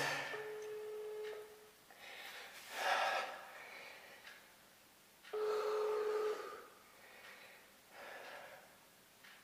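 Phone ringback tone as an outgoing call rings out: a steady single tone heard twice, about five seconds apart, each lasting about a second. A louder hissing noise comes in between the two tones.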